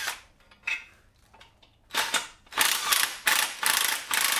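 Cordless impact wrench hammering out the bolts that hold an engine to its engine stand: a brief burst right at the start, then a string of short bursts with small gaps through the second half.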